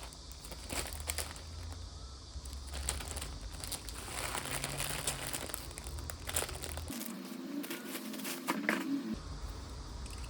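Album packaging being handled and unwrapped: plastic wrap and paper crinkling and rustling, with many small clicks and ticks.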